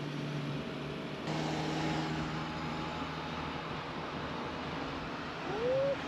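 Toyota Land Cruiser Troopy's engine and road noise heard from inside the cab while driving, a steady low hum. About a second in, the engine note becomes louder and slightly different. Near the end comes a brief rising-and-falling tone.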